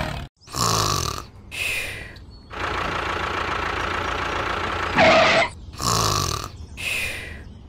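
Cartoon snoring sound effect: a snore repeated several times in breathy cycles, with a steady noisy stretch of a couple of seconds in the middle.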